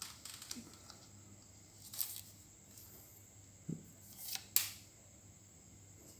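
Hands handling a Daiwa Phantom two-piece fishing rod: light rubbing with a few scattered clicks and taps, a soft knock a little before four seconds in and the sharpest click at about four and a half seconds.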